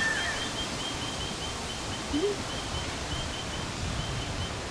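Outdoor ambience: a steady rustling haze with a short, high chirp repeating about three times a second, and one brief low rising sound about two seconds in.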